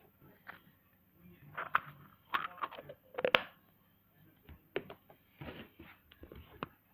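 Scattered clicks and knocks of small objects being handled, loudest in a cluster a little over three seconds in.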